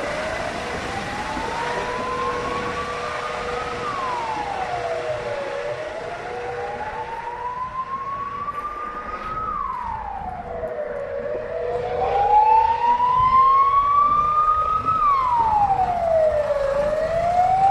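Emergency vehicle siren sounding a slow wail: each cycle rises in pitch over about four seconds, then drops quickly, repeating about every five and a half seconds over a steady tone. It grows louder about two-thirds of the way through.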